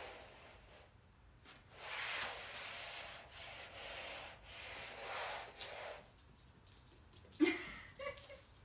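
Flat mop being pushed across a hard floor in swishing strokes of a second or so each. Near the end there is one brief, louder knock.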